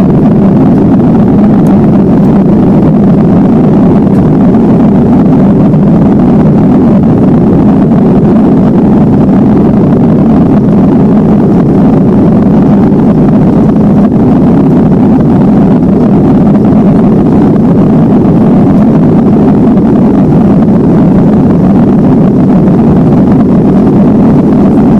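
Airbus A320 cabin noise: a steady, loud, deep rumble of the jet engines and rushing air, unchanging throughout.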